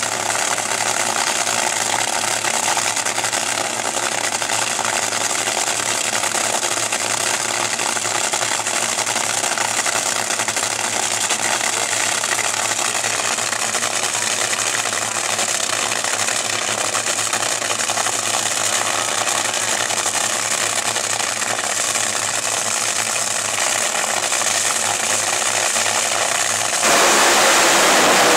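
Top Fuel dragsters' supercharged nitromethane V8 engines idling steadily at the starting line. Near the end they launch at full throttle and the sound jumps much louder, with the pitch falling.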